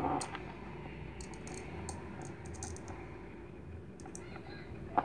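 Piezo disc driven by a homemade transistor inverter circuit, giving a faint steady hum under scattered sharp clicks as the disc and its wires are handled. There is a knock at the start and a louder one near the end.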